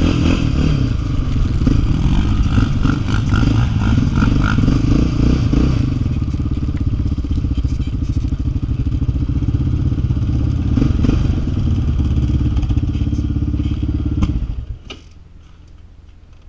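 Yamaha Raptor 660 quad's single-cylinder four-stroke engine running under changing throttle as it rides slowly through snow, then running steadily. It is shut off a couple of seconds before the end, leaving a few ticks and a faint low hum.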